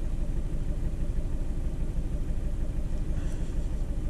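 Ford Fiesta 1.4 TDCi straight-four turbo-diesel idling with a steady, fast low pulsing, heard from inside the cabin. It is running lumpy with its number two injector unplugged, the sign of faulty injectors or injector wiring.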